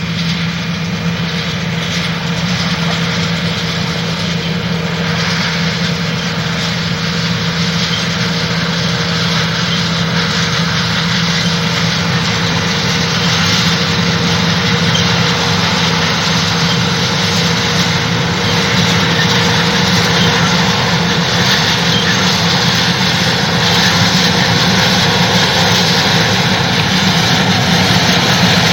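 1968 John Deere 45 combine running as it harvests soybeans. A steady engine hum over a wash of machine noise grows slowly louder as the combine comes nearer.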